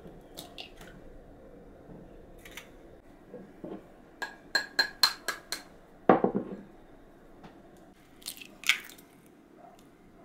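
Two eggs being beaten in a bowl, with the utensil clinking against the bowl. About four seconds in there is a quick run of about six ringing clinks, then a heavier knock, and two more taps near the end.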